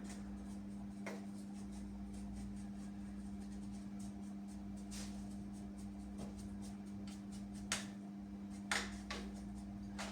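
Steady low hum with a few scattered sharp clicks and light knocks, the two loudest a little before the end.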